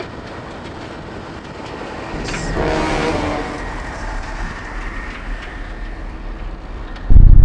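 Steady rumble and rush of heavy vehicle noise, with a horn-like tone sounding briefly about two and a half seconds in. A much louder, pulsing low rumble cuts in suddenly near the end.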